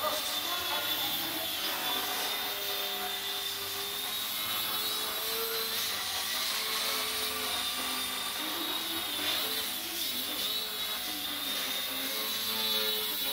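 Electric motors and propellers of small indoor RC model aircraft running, a steady high whine with lower tones rising and falling as the throttle is worked.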